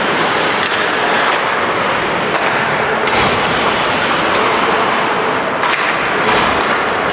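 Ice hockey game sounds in an arena: a steady wash of rink and crowd noise with a few sharp knocks from sticks, puck and boards, about two and a half seconds in and again near the end.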